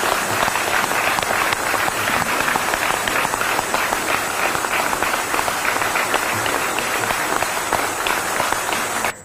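Sustained applause from a roomful of people, many hands clapping steadily.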